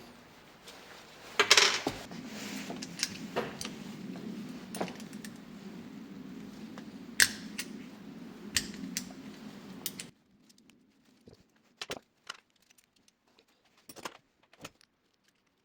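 Small metal tools and bike parts clinking and tapping as the rear derailleur's jockey wheels are worked on, with a few louder knocks. A low steady hum runs underneath and cuts off about ten seconds in, leaving only scattered light clicks.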